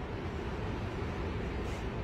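Steady airliner cabin noise: a low, even rumble with a hiss of air over it.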